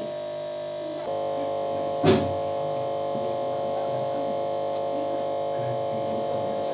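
Steady electrical hum made of several even tones, stepping up in loudness about a second in, with a single sharp knock about two seconds in.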